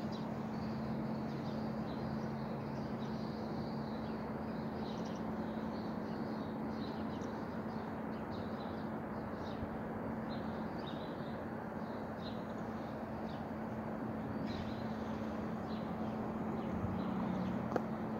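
Many short bird chirps and calls, scattered all through, over a steady background rumble and a constant low hum.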